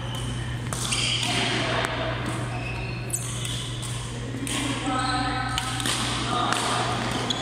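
Badminton rally in a large echoing sports hall: sharp racket hits on the shuttlecock about once a second, with players' voices around them and a steady low hum beneath.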